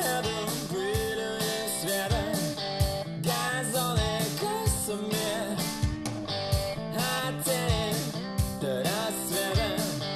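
Pop-rock music with a wavering lead melody, guitar and a steady drum beat, played back through Thonet & Vander Kugel loudspeakers.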